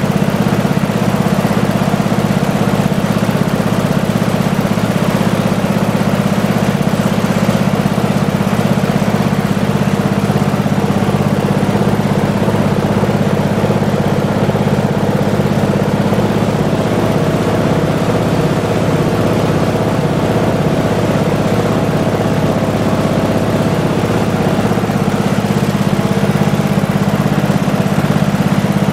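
Briggs & Stratton 16 HP cast-iron single-cylinder L-head engine running steadily on its test run after a fresh overhaul.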